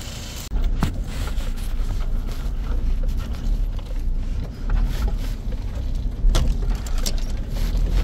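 Low rumble inside the cab of a Toyota four-wheel-drive driving over a rough dirt track, with a few sharp knocks and rattles from the bumpy ground. It starts suddenly about half a second in.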